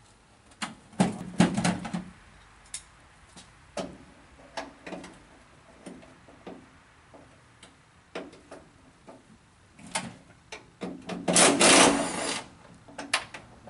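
Hand-tool work on a truck's cab door: scattered metal clicks and knocks, a cluster of louder knocks about a second in, and a longer scraping rattle about eleven seconds in.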